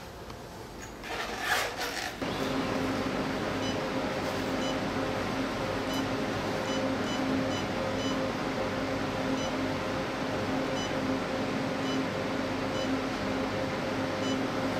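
Portable lipo laser slimming machine running with a steady electrical hum, a low tone with one higher overtone, and faint short high beeps at irregular intervals. A brief rustle of handling comes just before the hum starts, about two seconds in.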